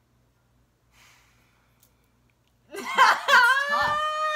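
A young woman bursts into loud, high-pitched laughter, a squealing held note, about three seconds in after a near-silent pause.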